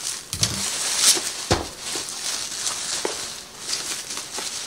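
Plastic packaging rustling and crinkling as it is handled, with scattered clicks and a couple of light knocks on the counter.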